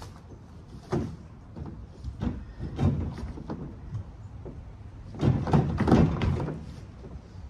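Scattered knocks and rattles of shed parts being handled during dismantling, with a denser clatter about five seconds in.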